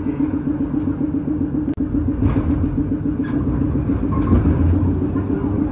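St. Charles Line streetcar heard from aboard: a steady, fast-pulsing hum over a low rumble that swells in the second half, with one sharp click a little under two seconds in.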